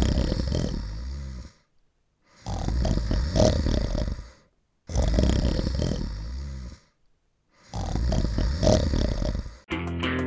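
A person snoring: four rough, rasping snores, about two and a half seconds apart, with short silences between them. Guitar music starts near the end.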